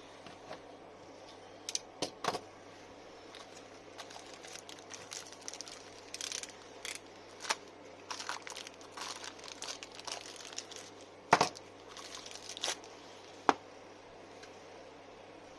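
Irregular crinkling and rustling, with scattered sharp clicks and knocks; the loudest knocks come about two seconds in, near eleven seconds and once more near thirteen seconds.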